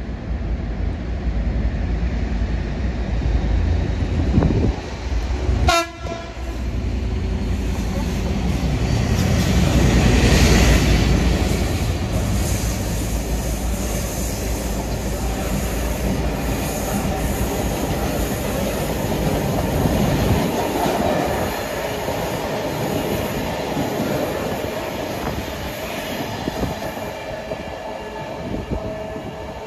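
Train running through a station: a continuous rumble and rail noise that is loudest about ten seconds in and then carries on steadily. There is a brief, sharp tonal sound about six seconds in.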